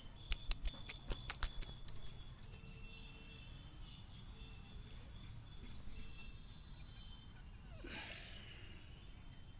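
Pondside insects and birds: a steady high insect drone with birds chirping in short rising calls. A quick run of about eight sharp clicks comes in the first two seconds, and a brief rustling swish about eight seconds in.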